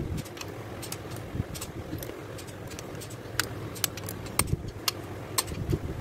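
Sharp metallic clicks at irregular intervals, with low knocks, from a torque wrench tightening the main bearing cap bolts of a Chevrolet 454 big-block V8 to their final 110 lb-ft.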